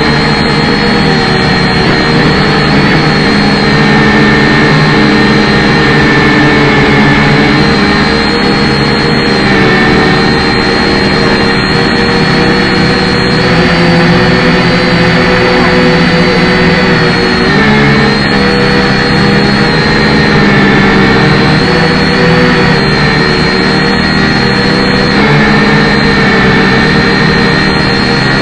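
Quadcopter drone's propellers buzzing loud and close in flight, a steady multi-toned whine whose pitch drifts up and down as the motors change speed, dipping and recovering about two-thirds of the way through.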